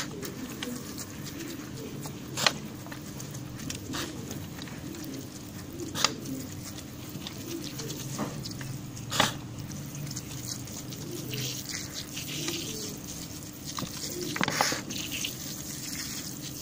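Water poured from a plastic bottle onto soil in a plastic tub: a few sharp splashes or taps, then a trickle of water on the wet soil for a few seconds near the end.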